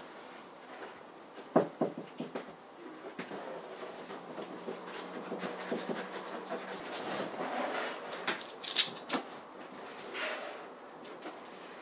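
A cat's paws on a large cardboard box: a few light knocks early on, then scratching and rustling on the cardboard, with one sharper, higher scratch about nine seconds in.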